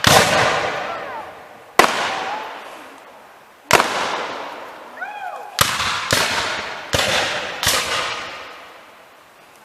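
Reenactors' black-powder muskets firing irregularly in a skirmish: seven sharp shots spaced one to two seconds apart, with a quick cluster of four in the second half. Each shot is followed by a long echoing tail.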